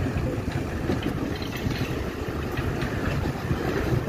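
Heavy truck's diesel engine running with a steady, rattly rumble.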